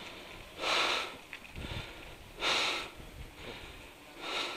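A person breathing hard close to the microphone: three heavy breaths, each about half a second long, spaced almost two seconds apart.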